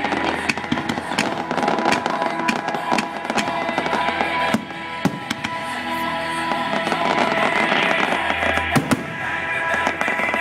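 Fireworks going off in quick succession, many sharp bangs and crackles, over music playing throughout.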